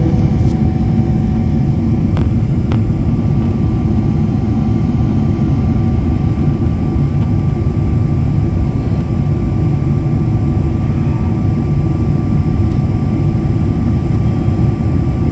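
Airliner cabin noise in flight: the steady, unbroken rumble of engines and rushing air heard from a seat by the wing, with a faint steady whine on top.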